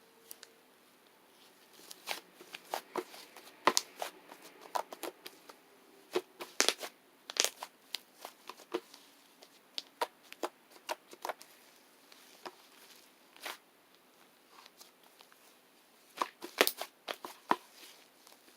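Irregular sharp clicks and taps mixed with crinkly rustling as small objects are handled; the clicks come in a busy run in the first half and again in a short cluster near the end.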